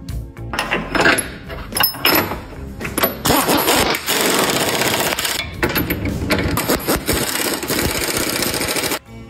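Power tool running, in short bursts at first and then steadily for several seconds, before cutting off suddenly near the end.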